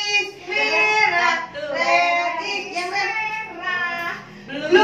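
Young children singing a song in sung phrases, with a short break about four seconds in.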